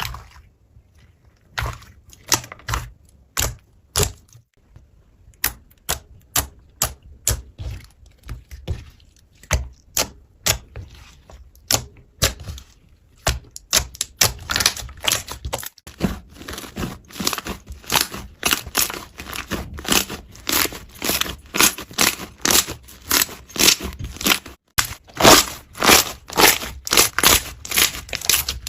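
Slime being squished and poked by hand, giving rapid sharp clicking pops, sparse at first and much denser from about halfway.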